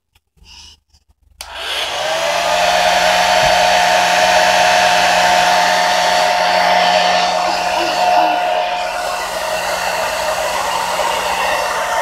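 Handheld hair dryer switched on about a second and a half in: the motor whine glides briefly upward as it spins up, then it runs steadily, blowing air.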